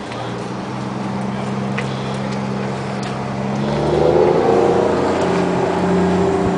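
Large engine running steadily with a low hum. About four seconds in it gets louder and a higher hum joins.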